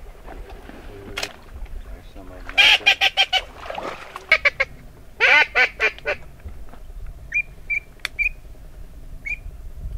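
A double-reeded blue-winged teal duck call, Haydel's BB-10 Big Blue, blown in two loud, rapid runs of quacking notes. These are followed by a scatter of short, soft, high peeps in the last few seconds.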